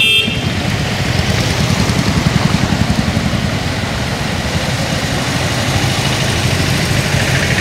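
Motorcycle and auto-rickshaw engines running steadily at low speed as they drive through floodwater, with water splashing around the wheels.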